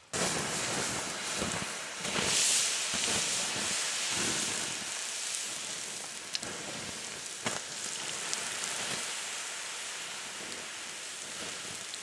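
Glowing campfire embers being doused with water: a hissing, sizzling rush of steam that starts suddenly, swells about two seconds in, then slowly dies away, with a couple of sharp pops in the middle.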